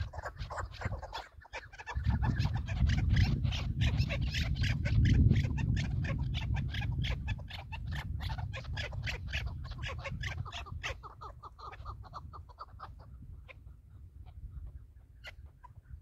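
Chukar partridges calling: a fast, continuous run of sharp chuck notes that thins out to scattered notes near the end. A low rumble sits under the calls through the middle.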